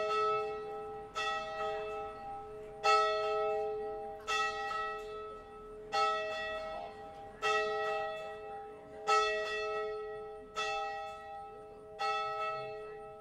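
A single church bell tolling, struck about every one and a half seconds on the same note, each strike ringing on and fading into the next.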